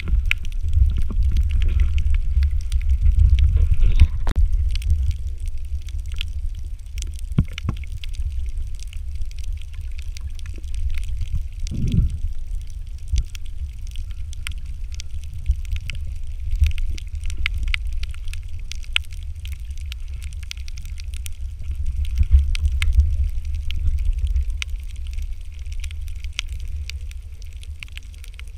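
Muffled underwater sound: a steady low rumble of moving water, swelling now and then, with many scattered sharp clicks and crackles.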